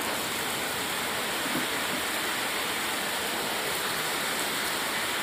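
Heavy rain falling, a steady, even hiss.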